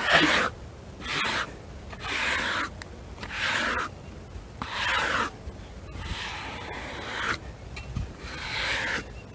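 Repeated scraping strokes across wood, about eight evenly paced strokes of roughly half a second each.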